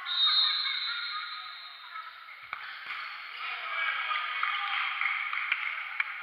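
A referee's whistle blown once at the start, loud and high, echoing and fading over about two seconds. Players' voices follow, with a few sharp thuds of the futsal ball being kicked, twice a couple of seconds in and once near the end.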